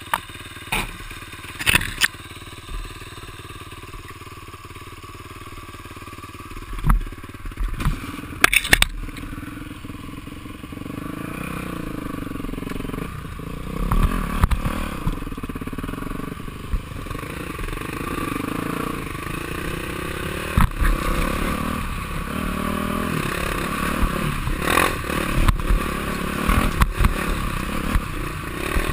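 Yamaha YZ426F dirt bike's single-cylinder four-stroke engine, low and quiet at first with a few sharp knocks. About nine seconds in it pulls away, then revs up and down over a rough dirt trail, growing louder.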